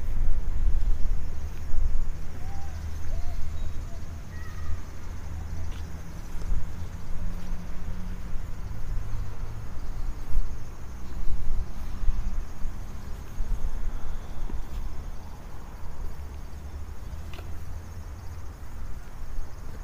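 Outdoor ambience on a city walk: a steady, fluctuating low rumble, with a few faint short chirps about three to five seconds in.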